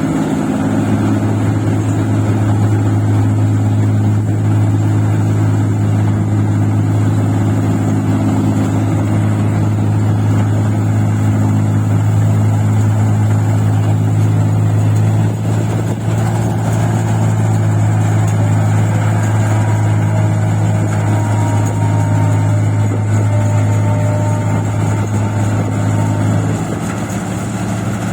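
Engine of a paddy-field machine running steadily at a constant speed, with a brief dip in level about halfway through.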